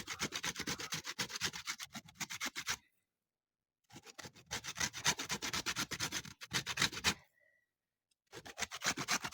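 Lemon peel being grated for zest, quick rasping strokes against a grater in three runs with short pauses between them.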